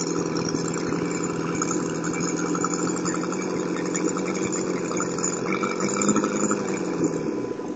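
O.S. FF-320 Pegasus four-cylinder four-stroke model aircraft engine turning an 18x12 propeller, running steadily on its first tank of fuel during break-in. Its pitch rises a little about six seconds in, then falls near the end.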